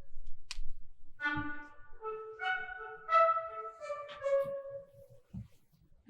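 Instrumental music: a slow melody of held, sustained notes, each lasting about half a second to a second. Two low thumps sound, about a second and a half in and again near the end.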